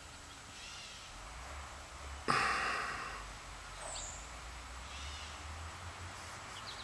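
A short, sharp breath close to the microphone about two seconds in, fading within half a second, over a quiet outdoor background with a few faint bird chirps.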